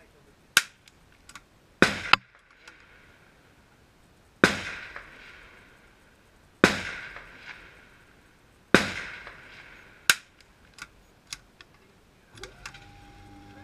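Rifle shots on a shooting range, .22 LR rifle fire: about seven sharp reports over ten seconds, the strongest three roughly two seconds apart, each with a trailing echo. A few faint clicks follow, and music comes in near the end.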